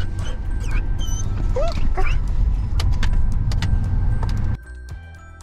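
Wind and road noise coming in through the open rear side window of a moving car, a loud low rumble, with a couple of short rising whines about a second and a half in. About four and a half seconds in it cuts off suddenly to a much quieter track with soft music.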